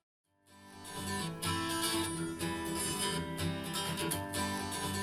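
Song intro with a strummed acoustic guitar, played back through a JBL speaker. It starts after a brief silence, rising in over about a second, then plays steadily.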